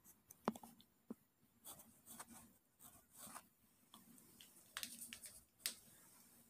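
Faint scratchy strokes of a paintbrush on canvas, with a few light clicks.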